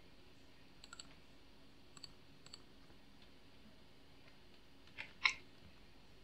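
Faint computer mouse clicks and keyboard keystrokes: a few sharp, scattered clicks over low room hiss, the loudest about five seconds in.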